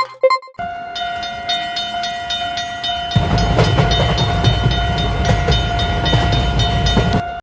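Train sound effects at a railroad crossing. A steady held tone starts about half a second in, then sharp metallic strikes repeat about twice a second, and about three seconds in the heavy rumble of a passing train joins. Everything cuts off suddenly at the end.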